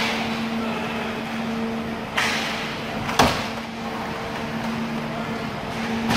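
Inline roller hockey play in an indoor rink, heard over a steady hum. The skates roll and sticks work, with one sharp clack about three seconds in.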